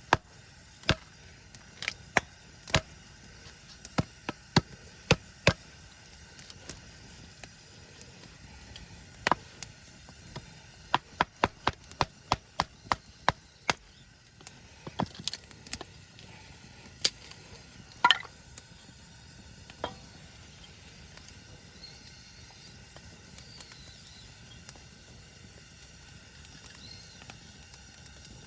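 A series of sharp, single striking knocks, some a second or more apart. Around the middle they come in a quick run of about two a second, then thin out to a few spaced blows.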